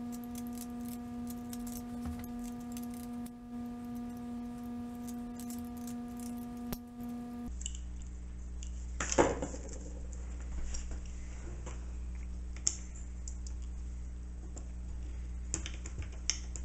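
Small clicks and scrapes of a knife blade trimming a thin wooden paint-stick piece by hand, over a steady hum. There is a louder scrape about nine seconds in.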